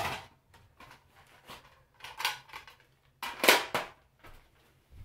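Plastic clacks and knocks of a Nerf blaster being reloaded: a magazine handled from a belt pouch and pushed into the blaster. Several sharp knocks at uneven intervals, the loudest about three and a half seconds in.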